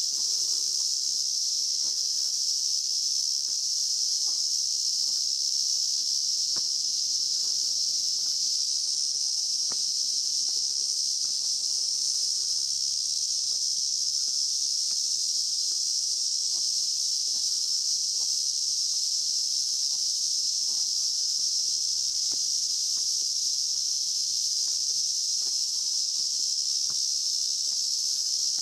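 Cicadas in a summer forest, a loud steady high-pitched buzzing chorus that holds an even pitch and level without a break.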